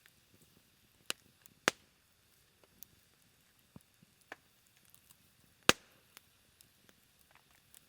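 Low campfire burning down to embers, crackling with scattered sharp pops, two louder pops a bit under two seconds in and near the end of the sixth second.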